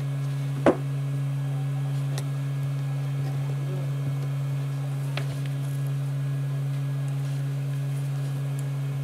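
Steady low electrical mains hum, with one sharp click a little under a second in and a couple of faint ticks later.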